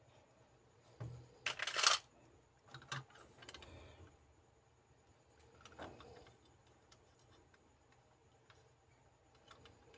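Hard plastic clicking and rattling of Kyutama toy capsules being handled and fitted together, with the loudest rattle, about half a second long, coming about one and a half seconds in, followed by a few sharper clicks and lighter ticks.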